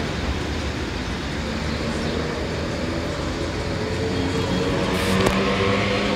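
New York City Subway 4 train running on the tracks: a steady rumble, joined about four seconds in by a steady motor whine, with a couple of sharp clicks near the end.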